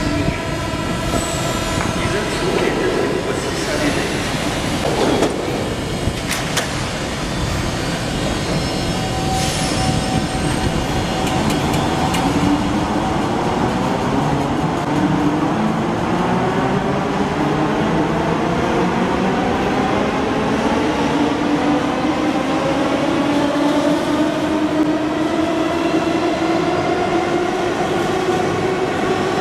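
RER A MS61 electric train pulling out of an underground station. After a few knocks and clatters in the first seconds, its traction motors give a rising whine that climbs steadily in pitch as the train gathers speed.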